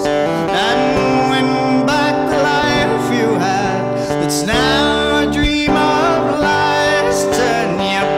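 Live acoustic guitar playing with a man singing along, sustained and wavering sung notes over ringing guitar notes.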